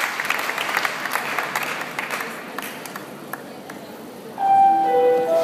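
Audience applause and clapping that dies away over the first three seconds. About four seconds in, music starts with long held notes.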